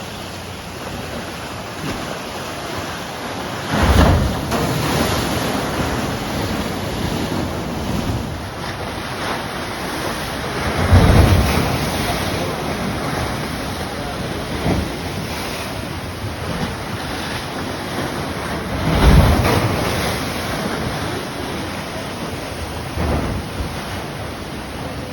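Ocean surf: a steady wash of water, with three waves breaking heavily roughly every seven or eight seconds.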